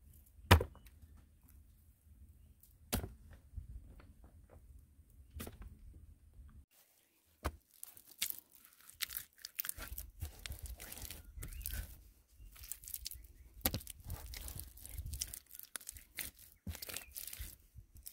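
A few separate sharp knocks, the loudest about half a second in, then, from about a third of the way through, wet mud being pressed and smeared by hand onto a log wall: a dense run of short slaps and crackles.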